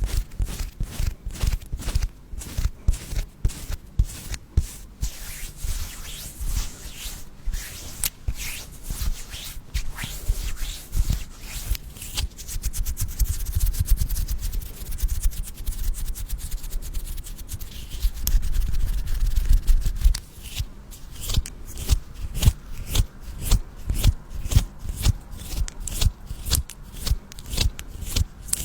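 Close-miked ASMR handling sounds: a fast, uneven run of taps and clicks, with a stretch of rubbing and scraping in the middle.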